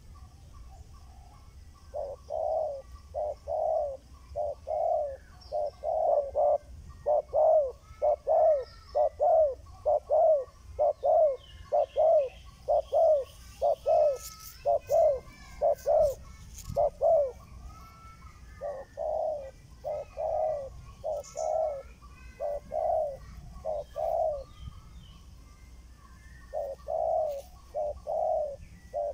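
Spotted dove cooing: a long series of low coos, about two a second, broken by two short pauses, with a few sharp clicks in the middle.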